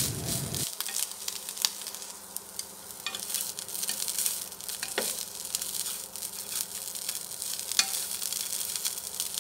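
Wooden chopsticks stirring and tossing shredded pork in a nonstick frying pan, with a light sizzling crackle as the meat dry-roasts and scattered clicks of the chopsticks against the pan.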